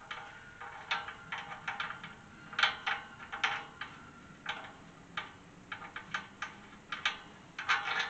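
Irregular metallic clinks and rattles of steel gate-hinge hardware being loosened and worked by hand on a galvanized tube farm gate, each clink ringing briefly.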